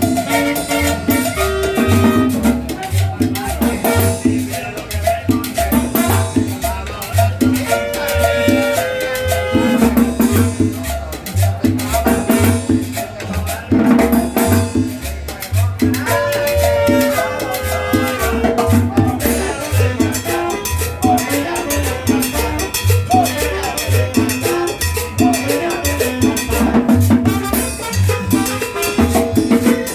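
Tropical Latin dance music, salsa-style, with a steady bass line, percussion and brass.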